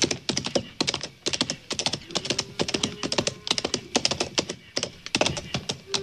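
Radio-drama sound effect of a horse galloping off: a rapid, dense clatter of hoofbeats.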